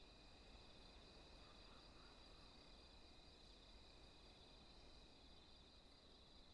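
Near silence with a faint, steady chirring of crickets as a night-time ambience.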